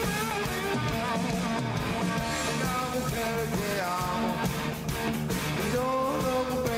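Rock music with a guitar carrying a gliding melody line over a steady band backing.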